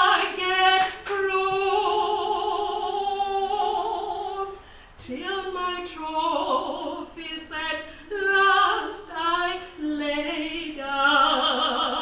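A woman singing a hymn solo, holding long notes with a strong vibrato. There is a brief break about five seconds in before she goes on.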